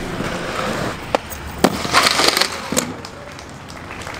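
Inline skates on concrete: wheels rolling, sharp clacks about one and a half seconds in, and a short scrape about two seconds in as a skate hits a ledge.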